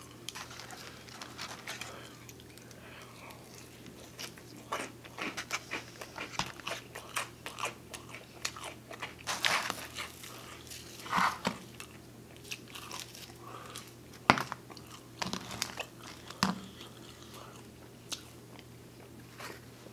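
A man eating close to the microphone: biting and chewing pizza and salad, with many short, irregular crunches and wet mouth clicks.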